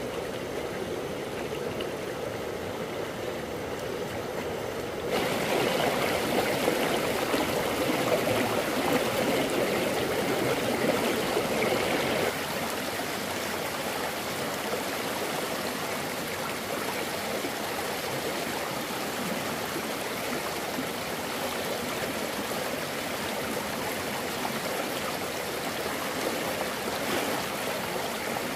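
Steady rush of running water from a stream swollen by rain and flood. It gets abruptly louder about five seconds in and drops back about seven seconds later.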